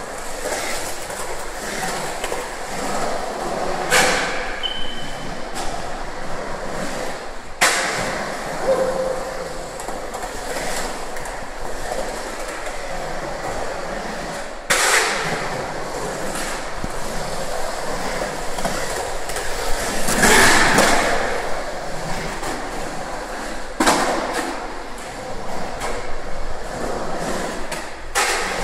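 Skateboard wheels rolling on smooth concrete ramps, a steady rolling rumble, broken every few seconds by a sharp clack of the board, six in all, the loudest about two-thirds of the way through.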